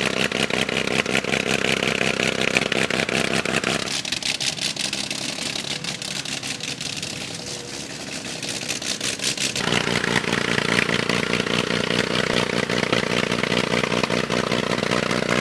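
Vintage car engine running with rapid, closely packed exhaust pulses. The sound changes abruptly about four seconds in, and again near ten seconds.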